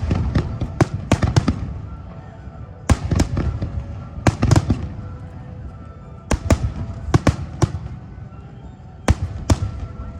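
Aerial fireworks shells bursting in quick clusters of sharp bangs, several groups a few seconds apart, each followed by a low rumbling echo.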